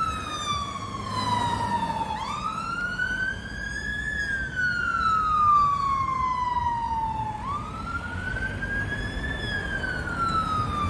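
Fire and rescue truck's wail siren, its pitch sweeping slowly up and down: a slow fall at first, then a new rise about two seconds in and another about seven seconds in, each cycle lasting about five seconds. Traffic rumble sits underneath.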